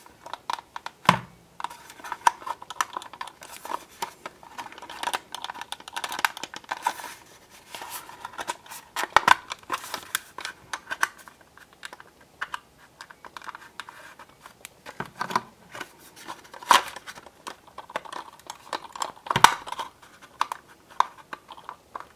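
Fingers and fingernails prising the plastic body shell off the chassis of an old Hornby OO gauge HST dummy power car: irregular plastic scratching, scraping and clicking as the clips are worked, with a few louder sharp clicks spread through.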